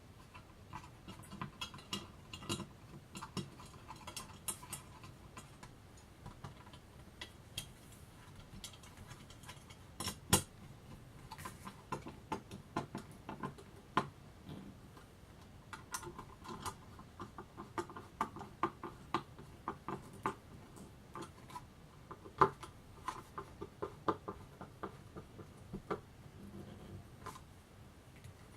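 Irregular light clicks and metallic clinks of hand work on ceiling fan hardware: small metal parts and hand tools being handled, with sharper knocks about ten seconds in and again a little past twenty-two seconds.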